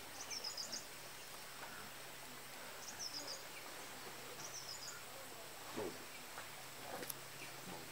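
Faint outdoor background noise with three short bursts of high-pitched chirping in the first half, each about half a second long.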